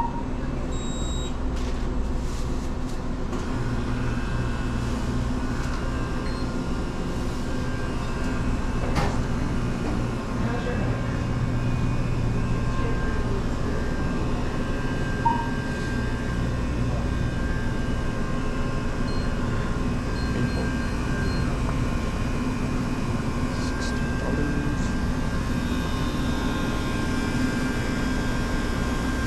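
Steady hum of a convenience store's refrigerated display cases, drink coolers and ventilation running, with one short beep about halfway through.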